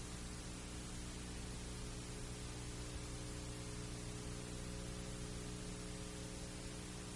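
Steady hiss with a low electrical hum: the recording's background noise, with no other sound.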